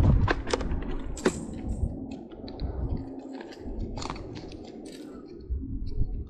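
A run of light, irregular clicks and ticks, after a low wind rumble on the microphone in the first moments.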